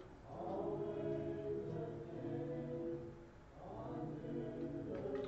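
Soft background music of sustained choir-like voices holding long chords, with a short break about three and a half seconds in before the next chord.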